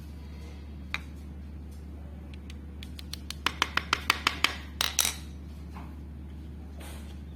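A quick run of about seven light, sharp taps, then a brief scrape, over a steady low hum.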